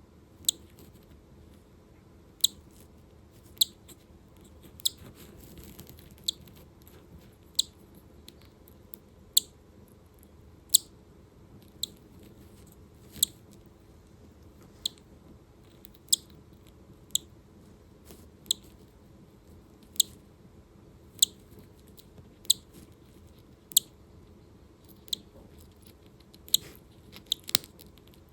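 A newly hatching cockatiel chick peeping: short, high single cheeps, about one every second or so, with a few in quick succession near the end.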